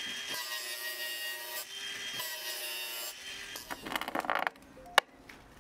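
Cordless angle grinder with a continuous-rim blade chamfering the cut end of a plastic (PVC) drain pipe, a steady motor whine over a grinding hiss that stops about three seconds in. Brief scraping follows, then a single sharp click near the end.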